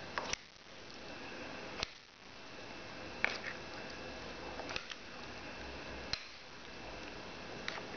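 Spoon clinking against a ceramic bowl while stirring a thick chocolate cereal mix: sharp clicks about every one and a half seconds, two in quick succession near the start, over a steady background hiss.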